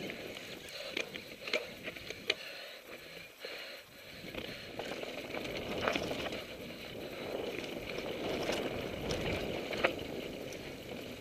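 Mountain bike rolling fast over a dirt singletrack, heard from a helmet camera: a steady rush of tyre and wind noise with scattered sharp clicks and knocks as the bike rattles over bumps.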